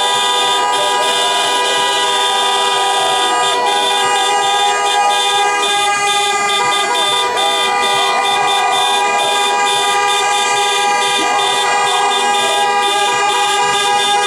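Horns blaring continuously at a couple of held pitches, over a large crowd of fans shouting and cheering.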